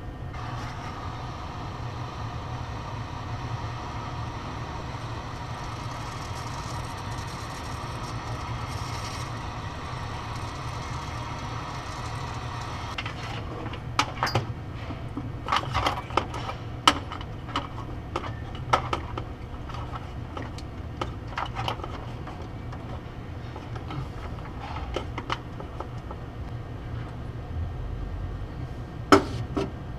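A steady low hum, and from about halfway on a scattered run of small sharp clicks and taps, the loudest one just before the end.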